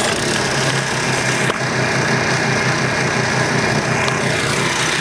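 Lawn mower engine rigged as a canoe's outboard motor, running steadily just after being pull-started, with a sharp click about a second and a half in. It runs unloaded, the boat out of the water on land.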